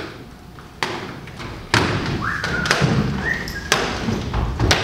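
Feet stamping on a wooden stage floor in a steady beat, a heavy thud about once a second, with two short rising high tones between the thuds.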